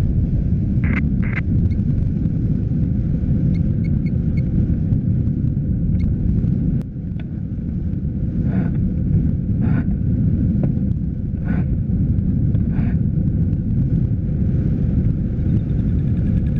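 Steady low rushing of wind over the microphone of a glider-mounted camera, from the airflow of a hang glider in flight.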